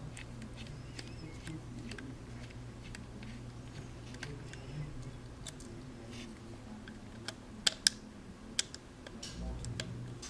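Small scattered clicks and ticks of tiny screws being unscrewed and handled on a Contour ROAM action camera, with a few sharper clicks about three quarters of the way through. A low steady hum runs underneath.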